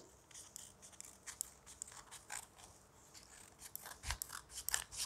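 Scissors cutting a sheet of paper in a run of short snips, faint and sparse at first, then quicker and louder from about four seconds in.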